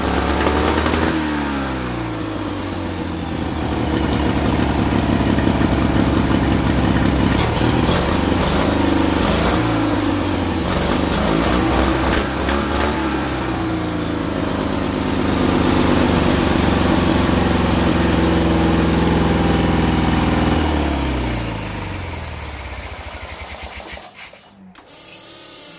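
Turbocharged twin-cylinder Briggs & Stratton engine with a blow-through motorcycle carburetor, running and revved up and down several times during a fuel-mixture tuning run with the carb needle set to its richest slot. Near the end the engine winds down and cuts off.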